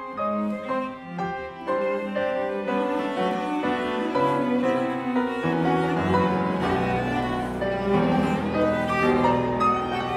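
Live piano trio of violin, cello and Steinway grand piano playing together in dense, quickly repeated figures, growing louder after the first couple of seconds. Deeper low notes come in about two-thirds of the way through.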